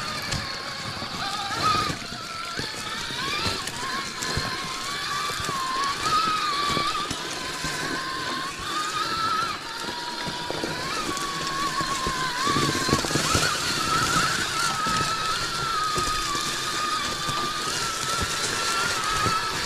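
Electric motor and gear drivetrain of an Axial SCX6 Honcho RC rock crawler whining as it drives, the pitch rising and falling with the throttle, with scattered knocks and crunches from the tyres and chassis on rocks.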